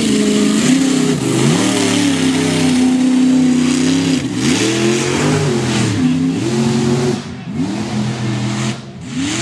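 Mega mud truck's engine revving hard and unevenly, its pitch climbing and dropping several times as the throttle is worked over the jumps and bumps of a dirt track, with a steady hiss of tyres and flung dirt over it. The engine falls away briefly near the end, then revs up once more.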